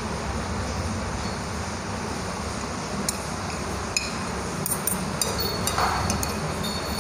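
A metal fork clinking lightly against a plate a few times, most of them in a quick cluster past the middle, as instant fried noodles are eaten, over a steady hiss of rain.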